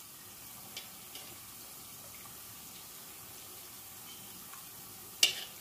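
Sauce simmering faintly in a stockpot while a metal spoon skims oil off the top into a small glass. There are a couple of light clinks and one sharp clink of the spoon against the glass near the end.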